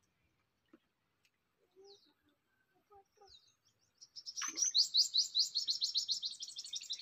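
A bird calling: a few faint short chirps, then about four seconds in a loud, rapid high trill of repeated notes, about eight a second, kept up for some three seconds.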